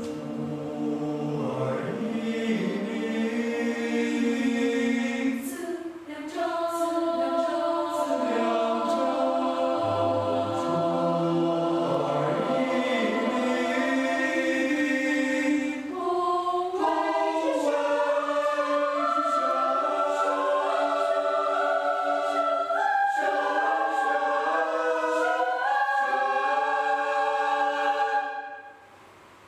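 Mixed choir of men and women singing a cappella in sustained, shifting chords of a modern choral piece. The singing dips briefly about six and sixteen seconds in, and the final chord cuts off just before the end.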